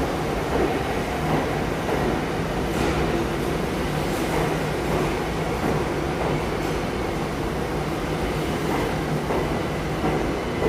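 R62A subway train on the (1) line moving along an underground station platform: a steady rumble of wheels and motors, with a held low hum throughout, echoing in the station.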